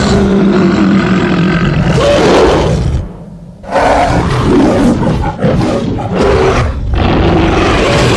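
Giant-monster roar sound effects: a long roar lasting about three seconds, a brief gap, then a second roar broken into several short bellows.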